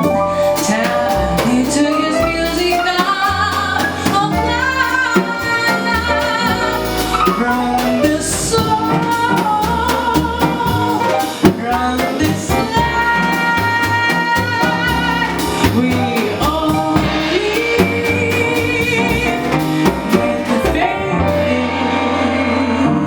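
Live jazz band playing: a woman sings held, vibrato melody lines over double bass and a drum kit with cymbals.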